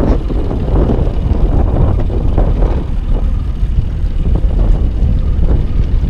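Boat's outboard motor running steadily at trolling speed, with a low rumble of wind on the microphone.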